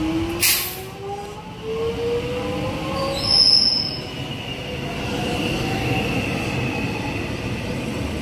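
Electric suburban train pulling away, its traction motor whine rising steadily in pitch as it gains speed. There is a short hiss about half a second in, and a brief high squeal about three seconds in, the loudest moment.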